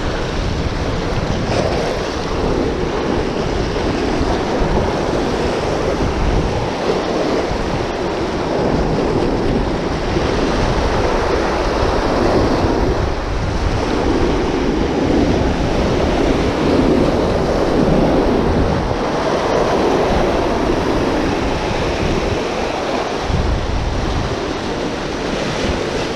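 Sea surf washing over shore rocks, a steady rushing that swells and eases, with wind buffeting the microphone.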